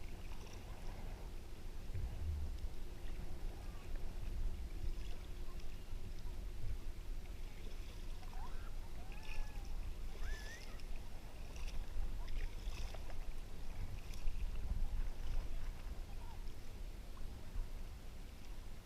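Inflatable kayak being paddled, with water lapping and splashing against it, muffled through a GoPro's waterproof housing over a steady low rumble. A few short calls that glide up and down sound around the middle.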